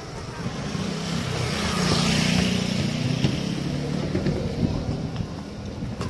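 An engine running with a low drone, swelling to its loudest about two seconds in and then easing off.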